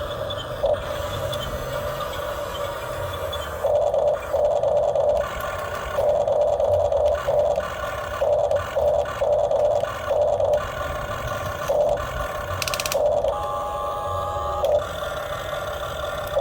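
Radio-controlled model excavator's motors whining in repeated short bursts as its controls are worked, over a steady lower hum.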